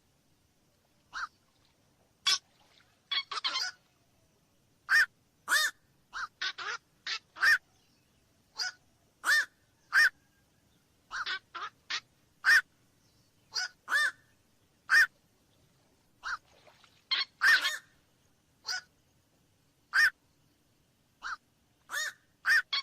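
Black-crowned night heron giving short, harsh single calls over and over, about one a second at an irregular pace, now and then two or three in quick succession.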